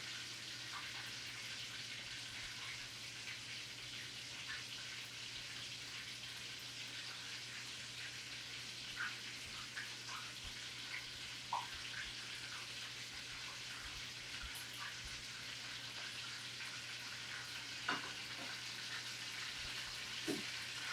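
Chicken breast frying in hot oil in a cast iron skillet: a steady sizzle with scattered small pops and crackles.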